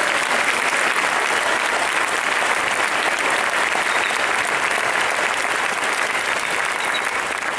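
Audience applauding steadily after a choir performance.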